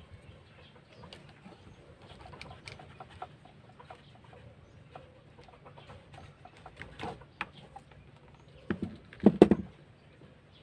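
Light clicks and taps of plastic and metal parts as a homemade PVC airsoft gun's swing-type loader is taken apart by hand. A few louder short sounds come near the end, the loudest about nine seconds in.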